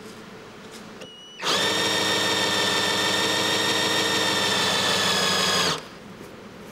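Electric motor driving an oil-pump test rig, running with a steady whine for about four seconds. It starts a little over a second in and cuts off suddenly near the end while the pump fills an empty oil filter.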